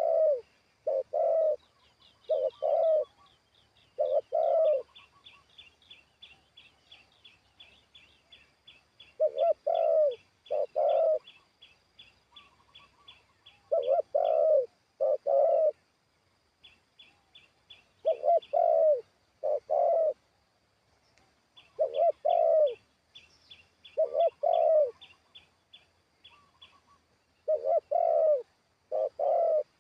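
Spotted dove cooing: loud low coos in groups of two or three, repeated every few seconds, a decoy bird calling. Underneath runs a faint, rapid high chirping of about three notes a second that stops and starts.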